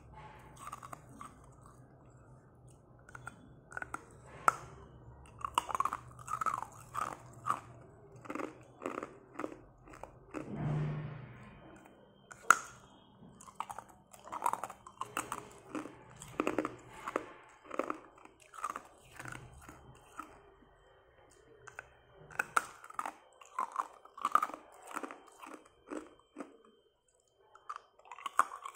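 Ice cube sticks being bitten and chewed: a dense, irregular run of hard crunches as the ice cracks between the teeth, with a short pause near the end.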